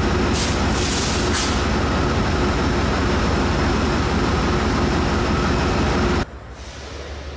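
Amtrak ALC-42 Charger diesel-electric locomotive idling at a platform: a loud, steady engine rumble with a constant hum, with two short air hisses about half a second and one second in. The sound cuts off suddenly about six seconds in, leaving a quieter hum.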